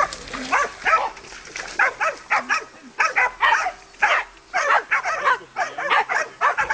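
Several hunting dogs barking rapidly and without a break, about three sharp barks a second, as they hold a wild boar at bay.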